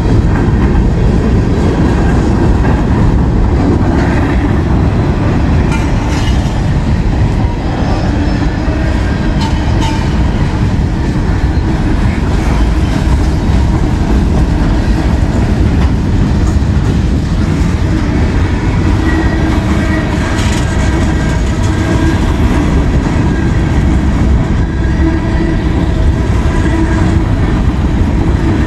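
CSX freight train's cars rolling past close by: a steady, loud rumble and clatter of steel wheels on the rails.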